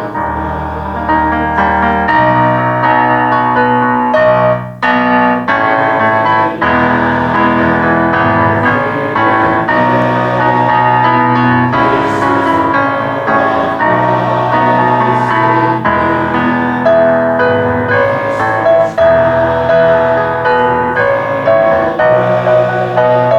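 Instrumental church music played on a keyboard: slow held chords, with the bass note changing every second or two.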